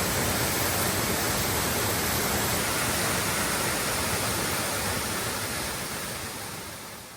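Steady, even rushing noise that fades out over the last couple of seconds, with a faint thin high whine in the first few seconds.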